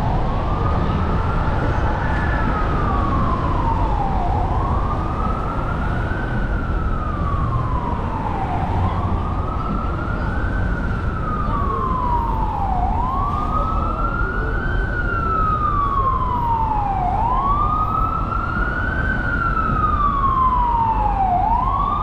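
Emergency vehicle siren in a slow wail, its pitch rising and falling about every four seconds, over the low rumble of city traffic.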